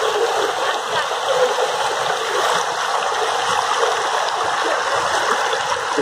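Shallow mountain river running over boulders and pebbles: a steady rush of water.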